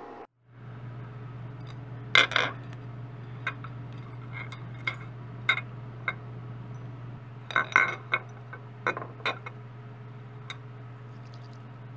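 Small nickel-plated steel tool parts clinking against a glass baking dish as they are set down and moved, about a dozen sharp clinks with the loudest about two seconds in and around eight seconds. A steady low hum runs underneath.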